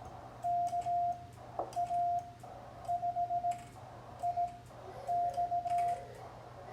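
Morse code (CW) sent on a semi-automatic bug key: the transceiver's sidetone, a steady single-pitched tone, keyed into quick runs of dits and longer dahs, with the key's contacts clicking along with it over a faint low hum.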